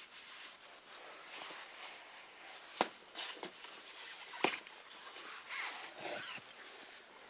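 Faint scuffing and rubbing, with two sharp clicks about a second and a half apart, then a brief rush of handling noise as the camera is picked up and moved.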